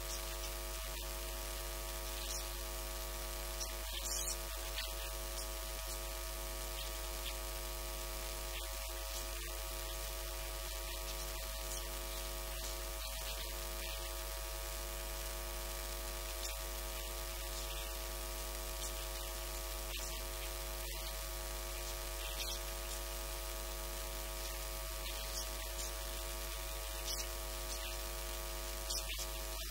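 Steady electrical mains hum with hiss from the recording chain, unchanging throughout, with a few faint brief ticks.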